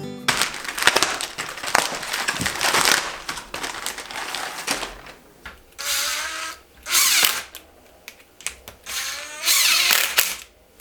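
Power drill running in short bursts, spinning up with a rising whine each time, as it drives fasteners.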